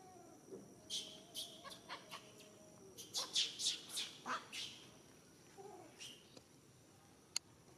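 Short high-pitched chirps: a few about a second in, then a quick run of them between about three and four and a half seconds in. Beneath them is a faint wavering tone, and a single sharp click comes near the end.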